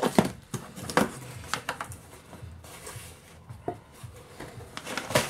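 Cardboard box being opened by hand: flaps pulled back and crumpled packing paper inside handled, giving a scatter of short sharp crackles and taps.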